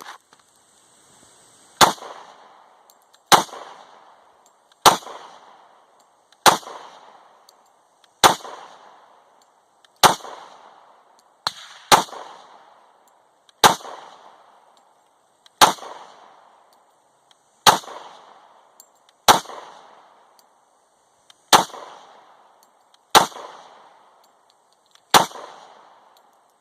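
Smith & Wesson SD40VE .40 S&W pistol firing fourteen slow aimed shots, one every one and a half to two seconds, each with a short echoing tail.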